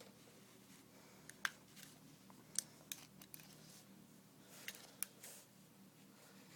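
Faint, scattered clicks and scrapes of metal tweezers working inside a Zippo lighter's insert, pulling out the cotton wadding.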